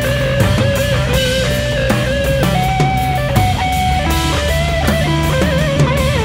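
Background instrumental rock music: a lead guitar melody of long held notes with a slight waver in pitch, over a steady beat.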